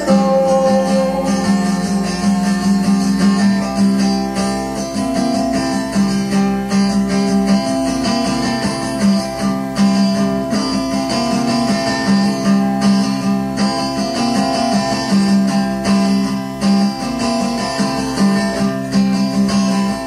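Acoustic guitar music playing steadily, from a 1983 home cassette recording.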